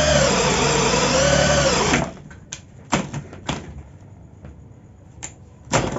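A Makita power drill boring wood with a 1-1/4 inch wood bit, its motor pitch wavering under load, then sagging and cutting out about two seconds in as the bit binds in the wood. A few sharp knocks follow, the loudest near the end.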